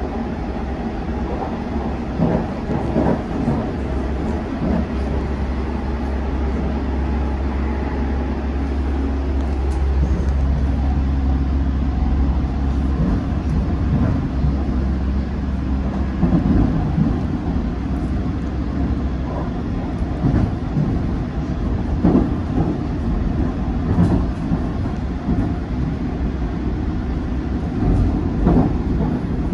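London Underground S8 Stock Metropolitan line train running at speed, heard from inside the carriage: a steady rumble of wheels on rail with a deep hum that eases off about halfway through, then repeated knocks as the wheels cross rail joints and points.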